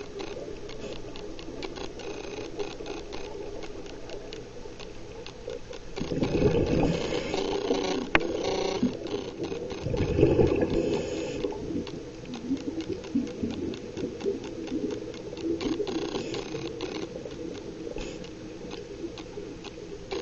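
Underwater sound recorded by a diver's camera: a steady crackle of dense clicks typical of a coral reef's snapping shrimp, broken twice, about six and ten seconds in, by a louder rushing rumble of the diver's exhaled regulator bubbles.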